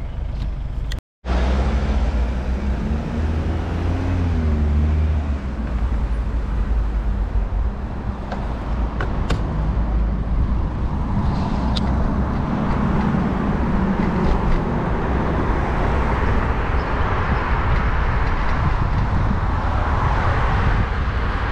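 Street traffic passing a moving bicycle, with a steady low rumble of wind on the microphone. A car engine wavers in pitch early on as traffic pulls away, and the road and wind hiss builds as the bike gathers speed. The sound cuts out completely for a moment about a second in.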